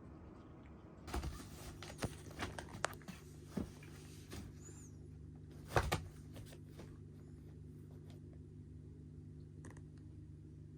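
A scattered run of light clicks and knocks, the loudest about six seconds in, over a steady low hum.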